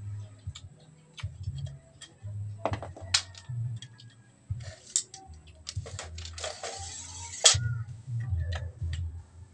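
Scattered light clicks and a few sharp knocks over a low, uneven rumble.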